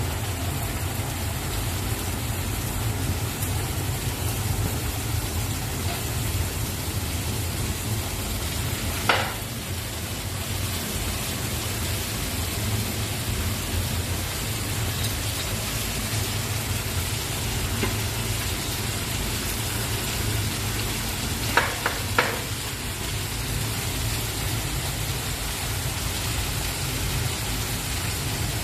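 Julienned carrots frying in hot oil in a large kazan at the zirvak stage of plov, a steady sizzle over a low hum. A metal skimmer stirring them knocks against the pot once about nine seconds in and twice in quick succession about twenty-two seconds in.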